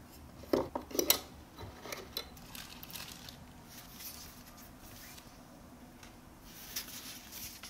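Small camera accessories being handled and set into a hard-shell carry case: a few sharp clicks and knocks about a second in, then lighter tapping and rustling.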